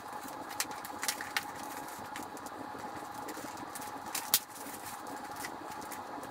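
Motorcycle helmet cheek pad being fitted and pressed into its snaps: scattered sharp plastic clicks and handling rustle, the loudest click a little after four seconds in, over a steady background hum.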